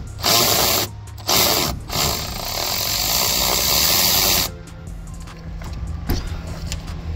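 Cordless electric ratchet running in bursts as it backs out a 10 mm bolt: two short runs, then a longer run of about two and a half seconds that stops about halfway through, followed by faint clicks.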